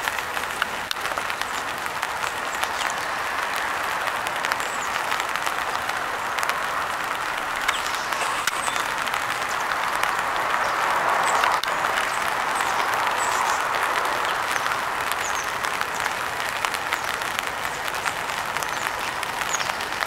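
Steady rain pattering on an open umbrella, a dense hiss of many small drop ticks, a little louder about halfway through, with a few faint high bird chirps.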